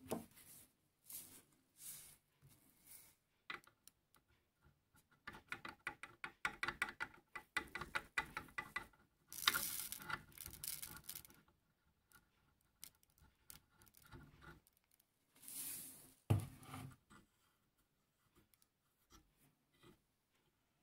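Black powder being poured from a brass priming tube into the flash pan of a small miquelet flintlock: a quick run of light metallic ticks and rattles, short hissing pours of powder, and one sharp knock about two-thirds of the way through.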